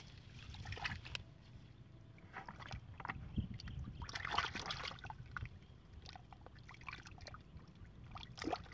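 A hand sloshing and splashing in muddy water in a small dug hole, groping for a fish: short, uneven splashes, the loudest about four seconds in.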